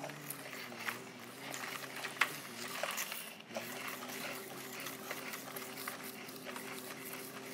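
Small electric motor and plastic gearbox of a toy remote-control excavator whirring as its arm lifts a toy tractor. The pitch wavers over the first few seconds, then holds steady, with sharp plastic clicks and knocks along the way.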